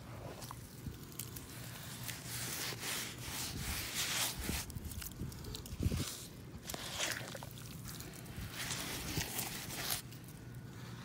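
Muddy water being poured and splashed over rubber muck boots, with wet rubbing and squelching of mud against the rubber. A single thump about six seconds in is the loudest sound.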